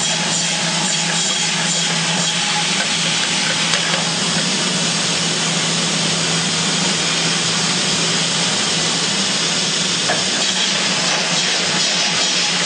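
Rotary 3-in-1 PET bottle filling machine running, a steady hiss over a low hum.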